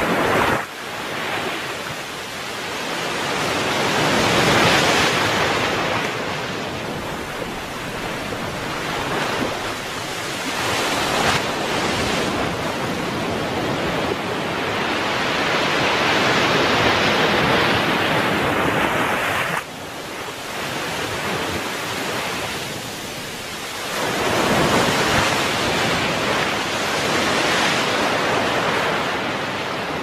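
Surf breaking and washing up a sandy beach: a steady hiss of water that swells and ebbs with each wave. The level drops abruptly twice, about half a second in and again about two-thirds through.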